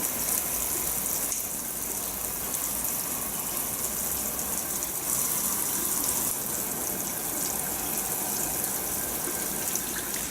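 Shower water spraying steadily over a fingerprint door lock cylinder in an even, continuous hiss.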